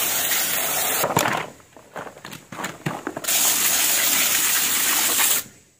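Garden hose spray nozzle spraying water onto harvested peanuts in a plastic crate to wash them. The spray stops about a second in, leaving a few splashes and knocks, then runs again for about two seconds and cuts off near the end.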